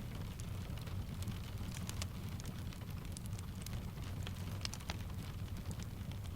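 Steady rain pattering on a window, mixed with a wood fire crackling in short, irregular snaps over a low rumble.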